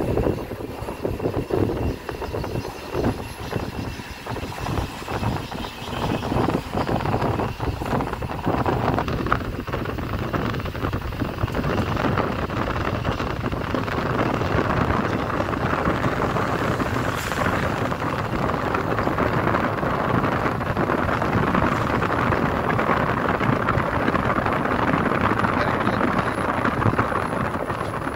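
Moving vehicle heard from inside, with its window open: a steady rush of engine, tyre and wind noise, choppier and uneven over the first several seconds and then smoother.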